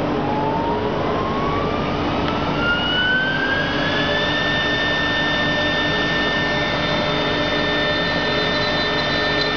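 HSD 3 kW spindle on a CNC wood router spinning up: a whine climbs in pitch for about four seconds, then holds a steady high tone at running speed, over a constant loud machine noise.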